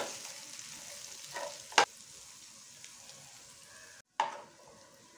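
Metal spatula scraping and knocking against a kadai as dry-roasted chicken sukka is stirred, with a faint sizzle underneath. There are three strokes in the first two seconds, the last the loudest, and one more sharp stroke just after four seconds.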